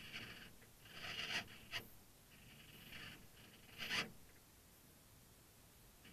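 Faint scratchy whirs in about five short bursts over the first four seconds, the loudest about four seconds in, from the radio-controlled model sailboat's servos moving the rudder as the boat turns.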